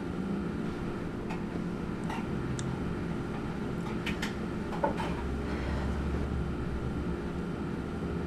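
Steady low hum of café room tone with a few light clinks and knocks of cups and coffee-making gear, the sharpest knock about five seconds in.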